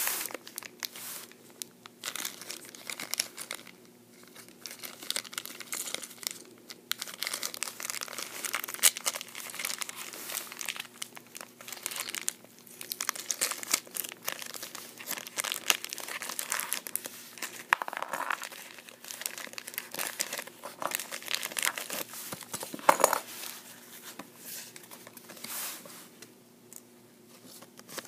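Thin clear plastic packaging bag crinkling and rustling as hands handle it and tear it open, in irregular bursts of crackle with brief lulls, fading off near the end.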